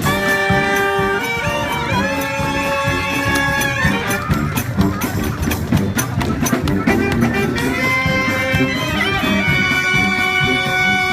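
Marching band playing: horns hold long notes in two phrases, the second starting about seven seconds in, over steady drumming.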